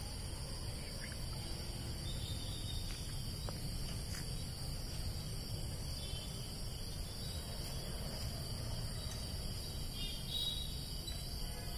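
Crickets chirring steadily in the night, with a steady low rumble underneath.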